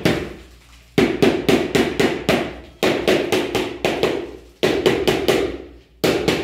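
Rubber mallet tapping a large ceramic floor tile to bed it into fresh mortar: quick runs of strikes, about four a second, in four bursts with short pauses between them.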